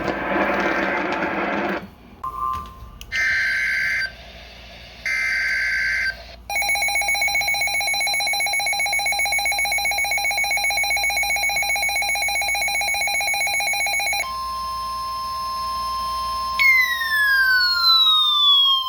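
Emergency Alert System alert coming over a TV channel: two short buzzy bursts of encoded header data, then the steady two-tone attention signal for about eight seconds. It then changes to a different steady tone, with a falling sweeping tone over it for the last couple of seconds.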